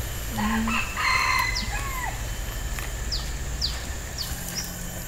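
A rooster crowing once, a call in several parts that falls away at the end, about half a second in. Short, high, falling chirps sound now and then behind it.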